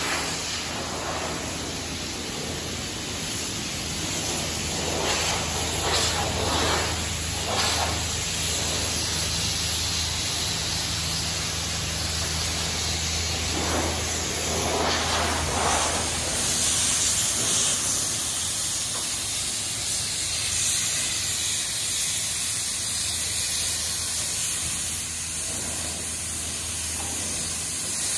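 Steady hiss of a hose-fed air lance blowing over steel racks freshly lifted from a hot-dip galvanizing zinc bath, getting louder and brighter about halfway through. A low, steady plant hum runs underneath.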